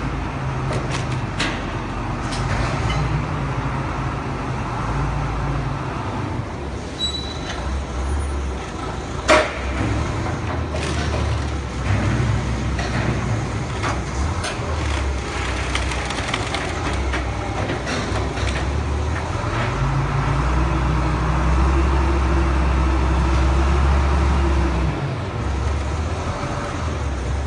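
Low machine rumble that swells and fades in stretches, with scattered clanks and knocks and one sharp clank about nine seconds in, as a wooden crate of glass sheets is handled and hoisted by crane.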